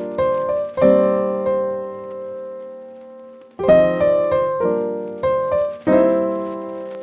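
Background piano music: chords struck and left to ring. One chord about a second in fades slowly, then the playing picks up again around halfway.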